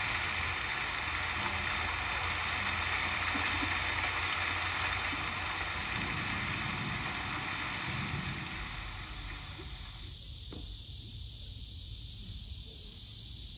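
Heavy rain falling steadily as an even rushing hiss. About ten seconds in it cuts off sharply, leaving a thinner high hiss.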